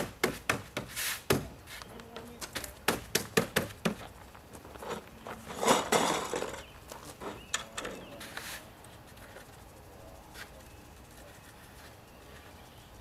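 A quick run of sharp clicks and knocks, about fifteen in the first four seconds, as foam pool coping and its plastic clips are pressed and snapped into place along the wall track. A brief rustle comes about six seconds in, then a few scattered taps.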